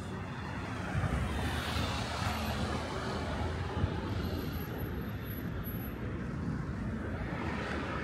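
Road traffic noise, with passing vehicles swelling and fading over a steady hum.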